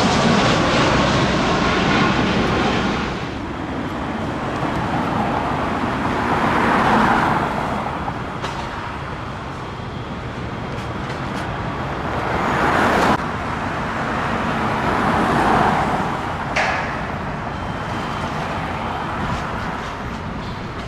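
Road traffic on a busy street, with vehicles passing one after another, each swelling and fading. A passing aircraft's engine noise with falling tones dies away about three seconds in.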